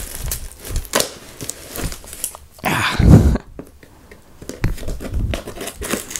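A cardboard shipping box being handled and cut open: scraping and scratching of cardboard and packing tape, with one louder noisy burst about three seconds in, then scissors cutting into the box.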